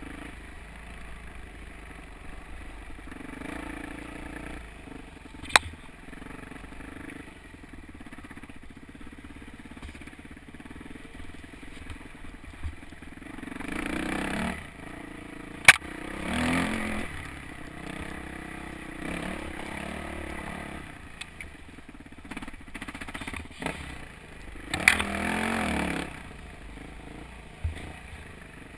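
Yamaha YZ426F four-stroke single-cylinder dirt bike engine running at low revs, opened up in three short bursts of throttle, about halfway through and near the end. A few sharp knocks cut through, the loudest about halfway.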